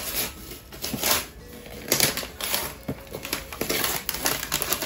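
Gift packaging being torn open and handled by hand: irregular rustling, crackling and tearing strokes.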